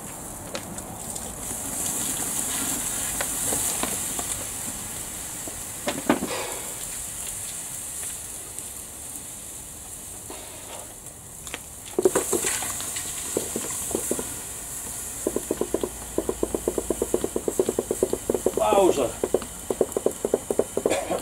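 Contents of an overvolted air fryer burning, with a steady high sizzling hiss and scattered cracks. In the last six seconds there is a fast, even run of crackles.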